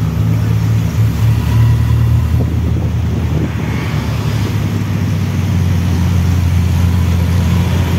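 Jeep engine running on the move: a steady low drone under a haze of wind and road noise.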